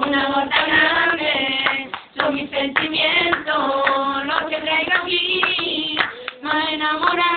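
Girls singing a song together, with steady rhythmic hand clapping keeping time; the singing breaks off briefly twice.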